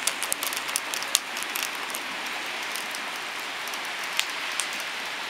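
Heavy cloudburst rain: a dense, steady hiss, with sharp drops clicking close by, most thickly in the first second or two and only now and then after that.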